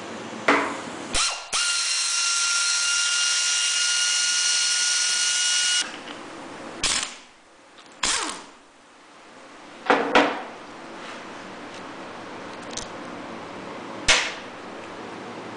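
Cordless drill with a socket spinning out engine cover bolts: a steady high whine for about four seconds, followed by several short sharp clanks and clicks.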